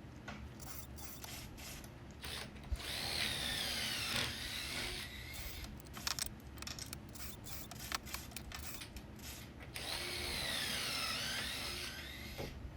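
Power drill boring pocket holes through a pocket-hole jig into 2x4 wood in two runs of about two seconds each. Its whine dips and rises as the bit loads up in the wood. Clicks and knocks come between the runs.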